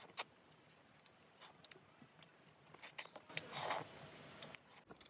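Close-miked sounds of eating fish curry with the fingers: scattered wet mouth clicks and lip smacks. A longer, wet, noisy stretch lasts about a second, starting about three and a half seconds in.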